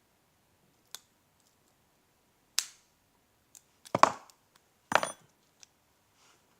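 Lock picks and a training padlock being worked by hand: a few separate sharp clicks and clinks of metal, the loudest three coming about two and a half, four and five seconds in, with faint ticks between.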